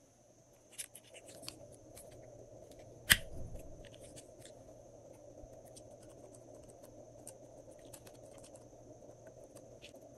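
Slime being handled and squeezed: scattered small sticky clicks and pops, with one sharp snap about three seconds in.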